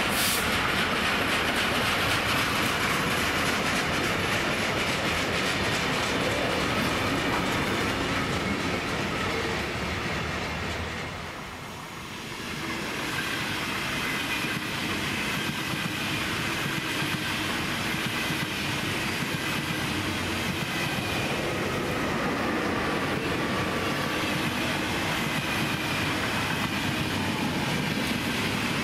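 Flat wagons of a waste-container freight train rolling past, the wheels running steadily on the rails. About twelve seconds in the sound dips and gives way to an ÖBB Railjet passenger train's coaches rolling past with the same steady wheel-on-rail noise.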